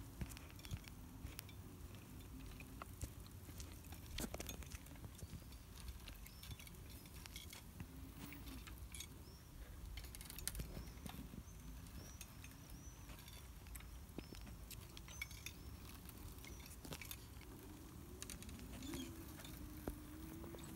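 Faint rumble of a hoverboard with a go-kart attachment rolling over a rubber playground surface, with scattered light clicks and rattles from the kart frame.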